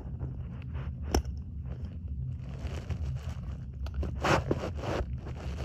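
Handling noise: fingers rubbing and scraping close to the microphone as a small diecast model car is moved about, with a sharp click about a second in, over a steady low hum.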